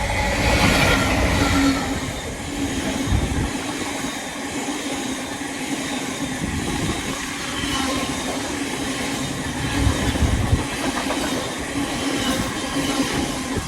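A freight train rolling past, its wagon wheels running over the rails, over a steady low hum. The rumble is heavier in the first few seconds and again briefly near the end.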